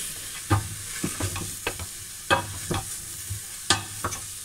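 Diced carrot, celery and onion sautéing gently in a little olive oil in a stainless steel pot, with a steady light sizzle. A wooden spoon stirs them and scrapes and knocks against the pot at irregular moments.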